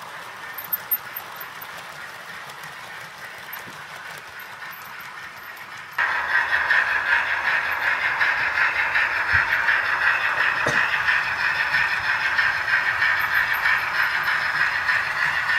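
OO gauge model trains running on the track, a steady whirring rumble of the small electric motors and wheels on rail. It jumps sharply louder about six seconds in, with a single sharp click a few seconds later.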